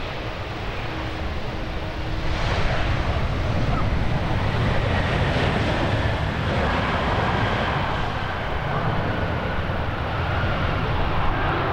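Embraer ERJ-190 jet on landing, its turbofans running with a faint whine that slowly falls in pitch, over strong wind rumbling on the microphone. The noise grows louder about two seconds in.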